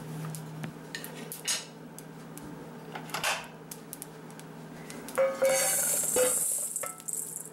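Whole spices toasting in a cast iron skillet, giving off scattered snaps and pops, a sign that they are ready. About five seconds in they are poured from the skillet into a glass bowl, rattling and clinking against the glass.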